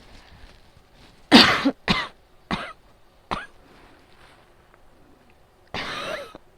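A person coughing during an asthma attack: a run of four coughs about a second in, the first the loudest and each weaker, then one longer, rougher cough near the end.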